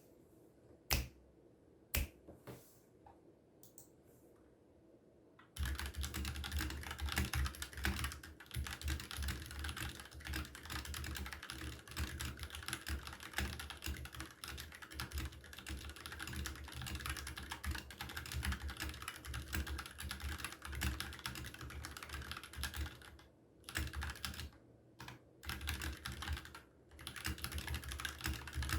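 Dareu EK871 wireless mechanical keyboard with Kailh Red linear switches being typed on: a few single key presses, then steady, fast typing from about five seconds in, with a few short pauses near the end.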